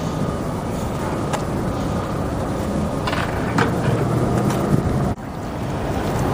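Steady low rumbling noise with a few faint clicks and a brief drop-out about five seconds in.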